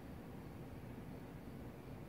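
Faint, steady low rumble with light hiss and no distinct sounds: background noise with no thunder.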